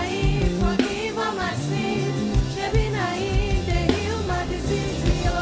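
Gospel music: a singing voice with vibrato over a drum beat and bass line.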